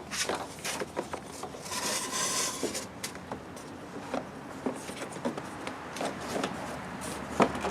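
Plastic door trim panel of a Toyota Prius rubbing and scraping against the door as it is hung in place, with scattered light clicks and knocks; a longer scrape about two seconds in.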